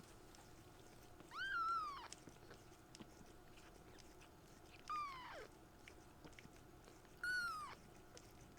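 A young kitten mewing three times, short high-pitched cries that each drop in pitch at the end.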